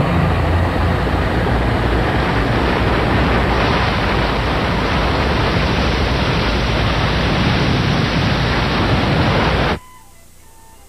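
Loud, steady rushing roar with a low hum at the start, cutting off suddenly near the end.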